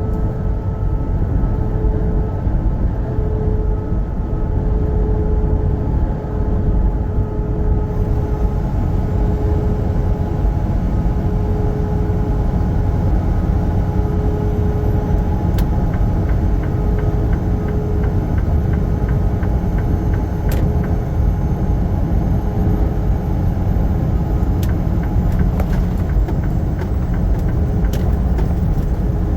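Semi truck driving on the highway: a steady low road and engine rumble with a faint steady whine over it. Scattered ticks come through in the second half.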